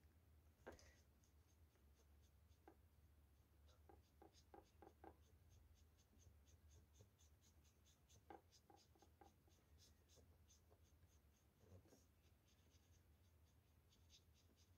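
Faint, rapid ticks of a fine paintbrush tapping and stroking india ink onto card, several a second, over a low steady hum.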